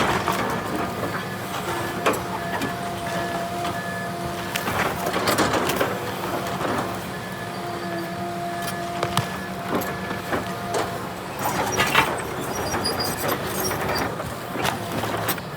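Excavator engine and hydraulics running with a steady whine of several held tones, over repeated sharp cracks and knocks from the stump shear working the stump.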